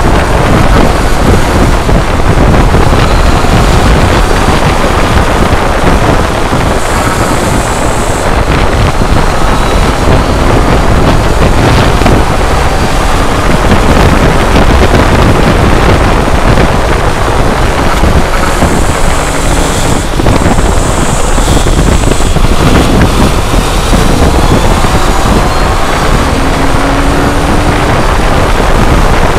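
Motorcycle engine running at a steady road speed, largely buried under heavy wind rushing over the camcorder's microphone.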